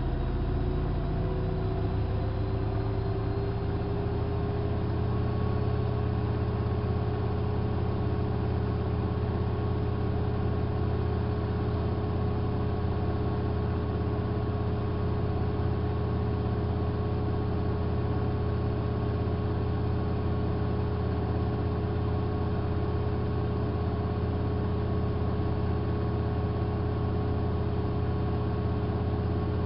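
Hanseatic HWM814A3D washing machine spinning. The motor's whine rises in pitch over the first few seconds, then holds steady at speed over a constant low hum.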